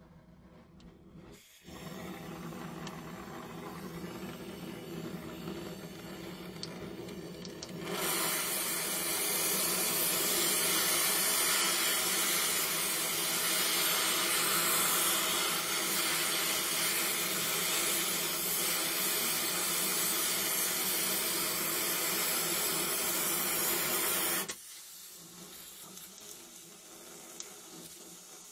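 Small gas welding torch (Donmet 132A micro) burning with a steady hissing flame. The hiss grows louder about eight seconds in and drops back to a quieter level a few seconds before the end.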